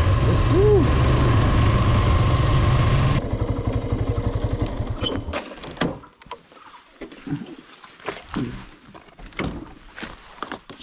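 Motorcycle riding along with engine and wind noise, which cuts off abruptly about three seconds in. The stopped bike's engine then idles with a quick even pulse and falls silent after a couple of seconds. Scattered clicks and knocks follow as the stationary bike is handled.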